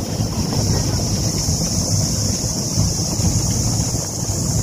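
Wind rumbling on the microphone, with a steady high-pitched hiss or buzz running over it.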